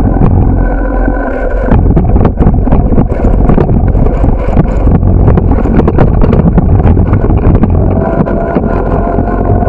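Wind buffeting the microphone of a camera on a moving bicycle, a heavy low rumble, with frequent sharp knocks and rattles as the bike rolls over the path and road.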